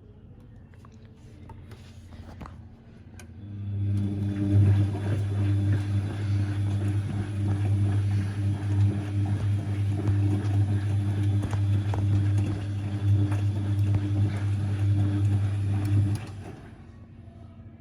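Siemens Siwamat XB1260 washing machine in its first rinse: a loud, steady mains hum over water noise starts a few seconds in, runs for about thirteen seconds, then cuts off suddenly.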